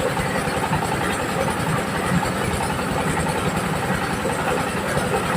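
Diesel-engine-driven mobile corn sheller running steadily, the engine giving a fast, even low beat under a constant rattling din from the machine.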